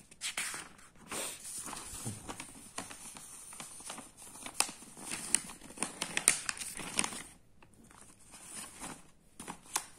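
Sheets of paper rustling and crinkling as they are handled and turned over, with a run of sharp crackles about halfway through.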